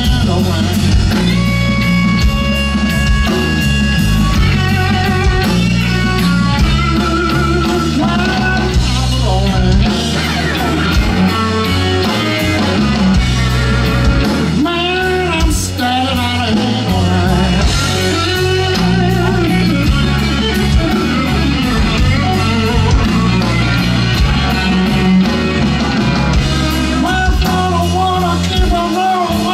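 Live blues-rock trio playing loud: electric guitar over bass guitar and drum kit, with a man singing into the microphone.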